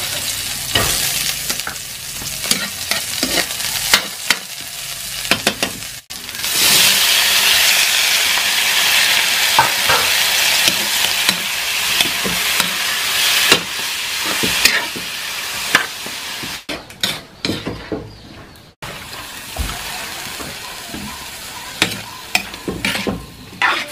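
Sliced onion frying in hot oil in a wok, with a metal spatula scraping and clicking against the pan. About six seconds in the sizzle turns much louder and fuller, and mud clams in their shells are stir-fried and tossed with the spatula, with many sharp clicks of spatula and shells.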